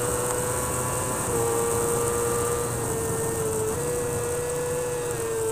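Honda CBR1000RR-R Fireblade superbike's inline-four engine held at high revs. Its high, steady note dips and rises slightly a few times, over a constant rush of wind.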